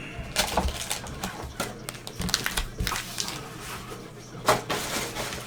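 Trading-card packs and cards being handled: irregular light clicks, taps and rustling of cardboard and wrappers, with one louder knock about four and a half seconds in.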